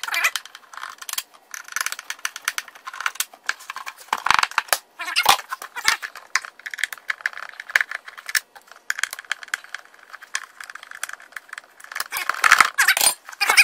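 Plastic housing of a Ryobi electric pressure washer being unscrewed with a hand screwdriver and turned over: irregular clicks, scrapes and rattles of the screwdriver and the plastic case being handled.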